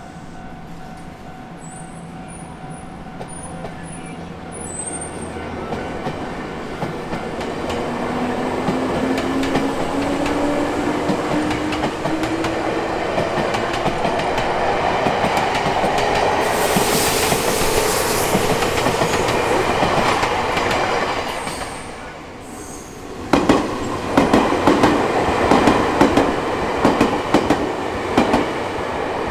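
Japanese level-crossing alarm ringing as an electric train passes. The train's motor whine rises steadily in pitch as the train gathers speed. Near the end, a loud rapid clatter of wheels over rail joints.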